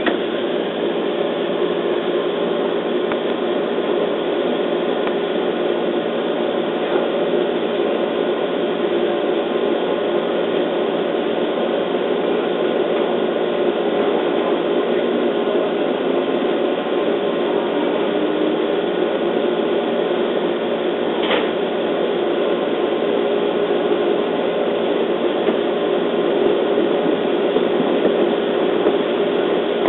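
Steady hum inside a JR East 211 series electric train car, with one sharp click about two-thirds of the way through, growing a little louder near the end as the train gets moving.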